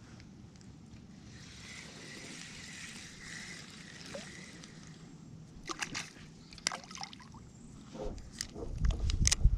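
Water sloshing and trickling close by. Several sharp clicks and knocks follow in the second half, and a low rumble builds near the end.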